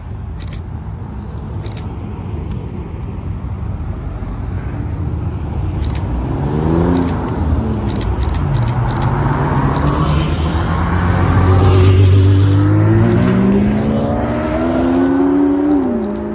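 Performance car engines driving past, growing louder toward a peak about twelve seconds in. Near the end one engine's pitch climbs under acceleration, drops sharply with an upshift, then climbs again.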